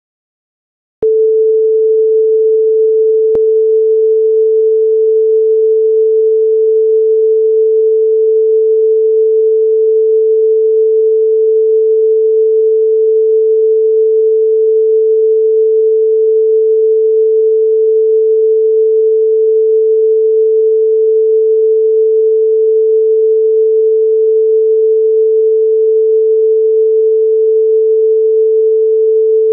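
Broadcast reference test tone of a bars-and-tone tape leader: one steady, pure, unchanging pitch, starting abruptly about a second in. A brief click sounds a couple of seconds after it starts.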